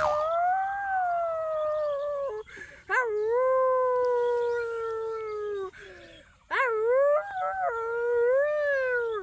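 Dog howling: three long, drawn-out howls, each holding its pitch and then sliding slowly down. The last one opens with a few quick wavering notes.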